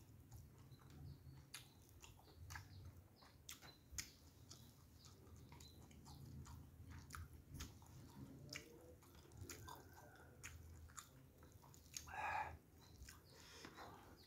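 Faint close-up chewing of rice, fried fish and tofu with wet mouth clicks and lip smacks, irregular, one to three a second. A brief louder noise comes about twelve seconds in.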